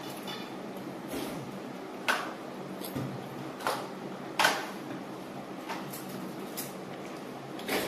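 Scattered sharp knocks and clinks, about eight of them, from steel tableware and a plastic toy truck being handled on a tiled floor, the loudest about halfway through. Under them runs a steady low hum from an electric fan.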